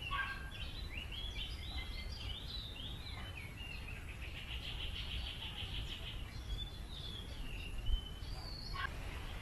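Wild birds calling and singing, with many short chirps and falling notes, and a fast trill of repeated notes for about two seconds midway. A low steady rumble runs underneath.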